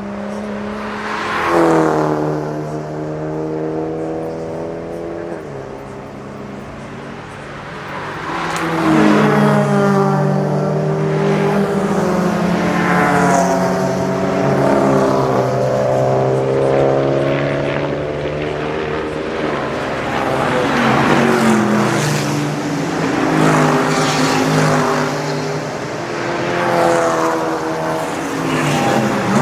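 Race cars passing at speed one after another, each engine note swelling and then falling in pitch as it goes by, with a steady engine tone underneath.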